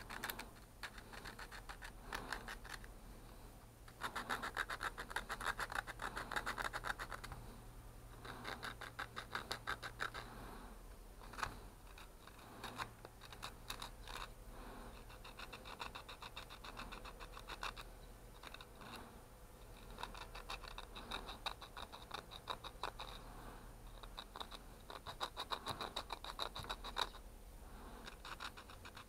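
Abrasive cloth rubbed quickly back and forth by hand over a small plastic-and-metal electrical part, a dry scratching in bouts of rapid strokes with short pauses between them.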